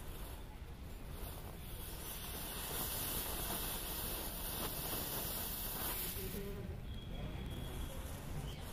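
A chain of standing matchsticks catching fire one after another, the heads flaring with a fizzing hiss. The hiss grows louder for a few seconds in the middle and fades about two-thirds of the way through.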